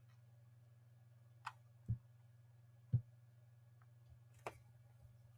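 A few computer mouse clicks while navigating, a sharp click, then two duller, louder thumps about a second apart, and another sharp click near the end, over a steady hum.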